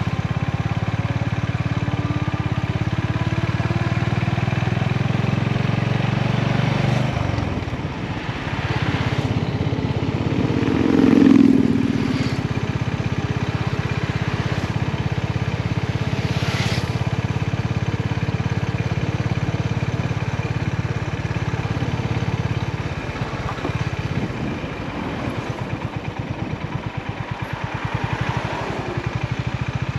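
Honda GB350's single-cylinder engine running as the motorcycle is ridden. The engine note drops about seven seconds in, swells briefly a few seconds later, and near the end settles to a slower, pulsing beat like an idle.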